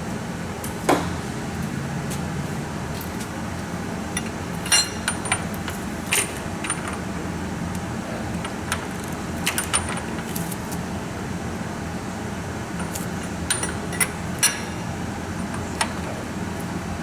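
Light metallic clinks of hand tools against engine parts, about ten of them at irregular intervals, over a steady low hum.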